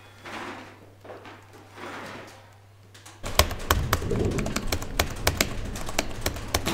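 Computer keyboards being typed on by several people: a fast, irregular clatter of key clicks that starts abruptly about three seconds in. Before that there are only a few faint soft sounds.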